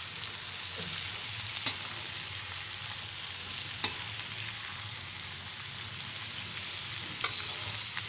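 Chickpeas frying in hot oil with cumin in a kadhai, sizzling steadily as they are stirred with a metal slotted spoon. A few sharp clinks of the spoon against the pan.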